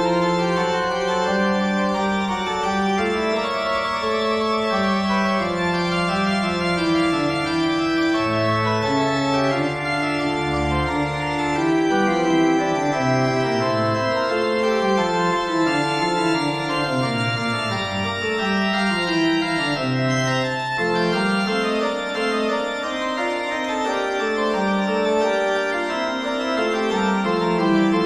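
Organ music: slow, held chords that change every second or two over a bass line moving in steps.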